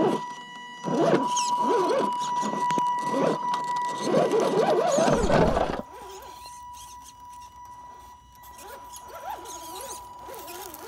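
RC rock crawler's brushed 540 electric motor and gears whining as it climbs, the pitch rising and falling with the throttle, over a steady high electronic whine. The sound drops suddenly about six seconds in and goes on more faintly.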